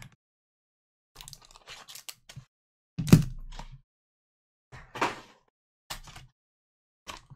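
Gloved hands handling a cardboard trading-card mini box: scattered clicks and rustles of the flaps being pried open, a hard thump about three seconds in (the loudest sound), then a scraping rustle and a few short clicks as the card pack inside is worked loose.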